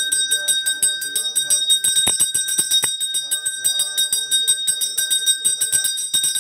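Puja hand bell rung rapidly and without a break during the arati, many strokes a second over a steady high ring.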